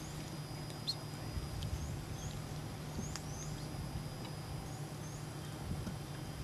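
Quiet outdoor ambience: a small bird repeating short, high, upward-hooked chirps every second or so, over a steady low hum and faint hiss, with a couple of faint clicks.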